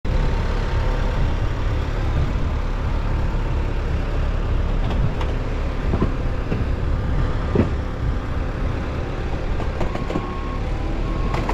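A steady engine running at idle, with a few faint knocks partway through.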